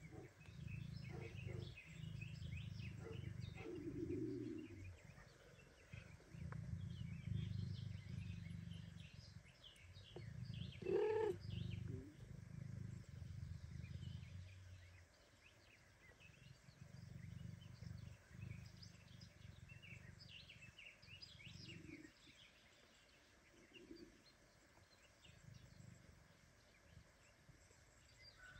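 Mother cat purring in long, low phrases while her kittens nurse, the purr quieter and more broken after about fifteen seconds; one short mew comes about eleven seconds in.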